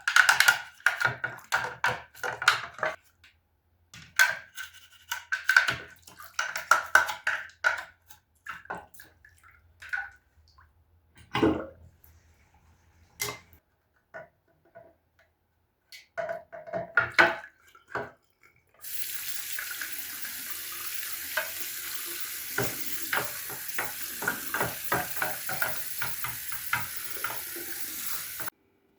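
Kitchen clatter: scattered knocks and clinks of dishes and utensils. About two-thirds of the way in, a sink tap is turned on and water runs steadily into the sink with dishes clinking under it, then the tap is shut off abruptly near the end.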